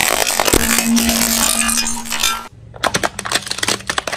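Plastic toys cracking and crunching under a car tyre. A dense crackle lasts about two and a half seconds, then after a brief break comes a run of sharp, separate cracks.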